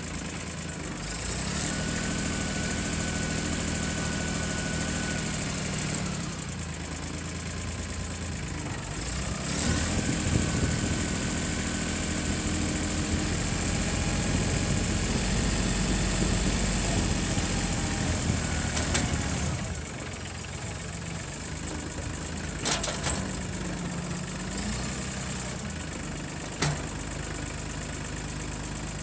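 Mahindra tractor's diesel engine running, picking up speed and load twice as the front-end loader works dirt, with a thin whine during the louder stretches. A few sharp knocks come in the last third.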